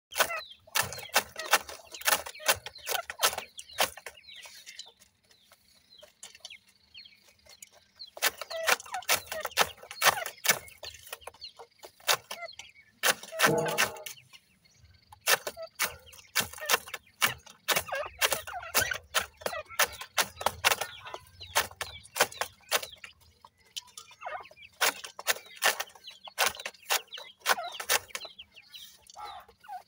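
Young grey francolins (dakhni teetar) calling in runs of short, sharp clucks and chirps, with quiet gaps between runs and one longer, lower call about thirteen seconds in.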